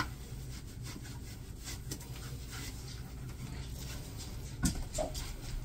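Faint rubbing and scratching of hands on a wet dog's coat, over a steady low hum. A brief voice sound breaks in about four and a half seconds in.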